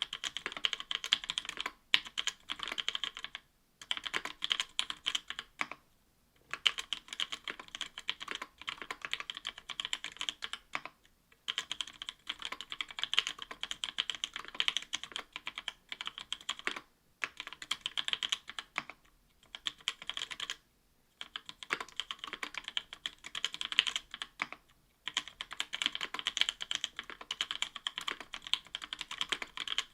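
Typing on a mechanical keyboard with lubed NovelKeys Cream linear switches (Krytox 205g0) in an aluminum plate with GMK keycaps: fast runs of keystrokes broken by brief pauses every few seconds.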